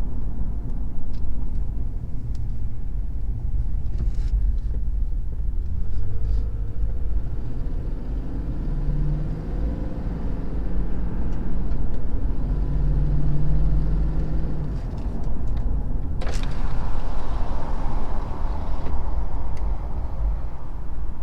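Toyota Tundra's 5.7-litre V8 engine running with a tick that replacing the left exhaust manifold has not cured. The sound grows brighter and noisier about three-quarters of the way through.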